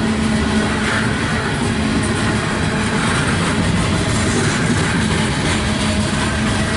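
Loaded coal hopper cars of a CSX freight train rolling past, with a steady rumble and rattle of steel wheels on the rails.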